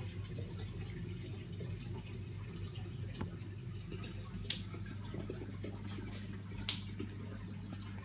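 Water trickling and dripping from a paludarium's waterfall feature, with a steady low hum underneath and two louder drips, one a little past halfway and one near the end.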